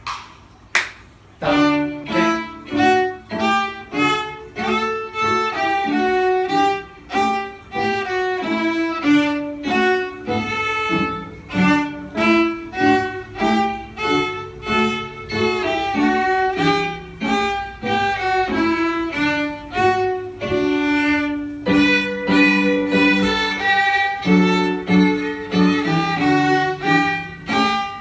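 Solo violin played with a bow, a run of separate notes moving briskly from one pitch to the next. It begins about a second and a half in, just after a sharp click.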